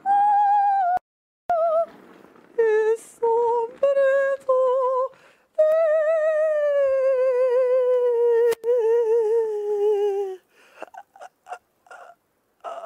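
A woman singing alone in a high voice with wide vibrato, no accompaniment: a run of short notes, then one long note held for about five seconds, slowly falling in pitch and ending about ten seconds in.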